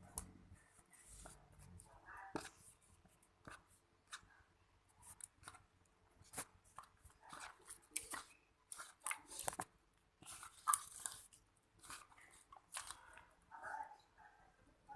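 Homemade borax-free slime being handled: irregular sticky clicks and short crackles, some sharp, as it is squeezed and pulled.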